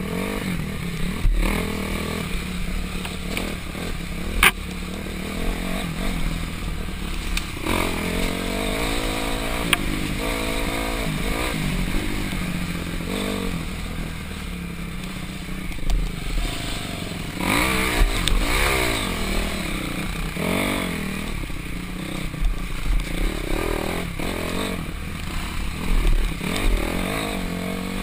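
Dirt bike engine running on a rutted trail ride, revs rising and falling as the rider works the throttle between bumps and turns. A sharp knock comes about four and a half seconds in.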